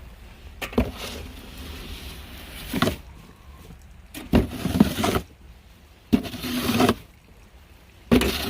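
Footsteps crunching in snow, coming in irregular bursts of a few steps each, over a steady low rumble.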